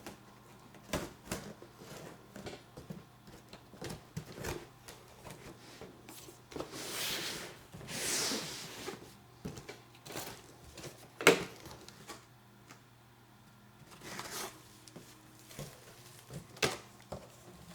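Cardboard kit box being opened and handled: scattered taps and knocks, two longer rasping scrapes of cardboard about seven and eight seconds in, and a sharp knock about eleven seconds in.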